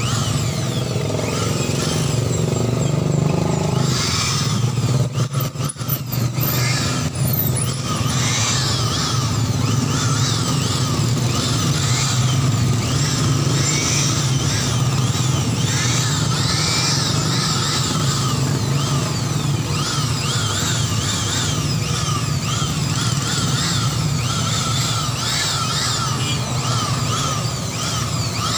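Handheld electric aspirator blower running steadily in vacuum mode with its dust bag fitted, sucking dust from inside a desktop computer case. Its level dips briefly, with a few clicks, about five seconds in.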